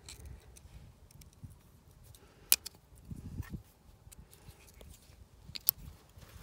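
Small metal parts clicking as a steel pick and fingers work at a removed diesel lift pump. There is a sharp click about two and a half seconds in, another near the end, and dull handling bumps in between.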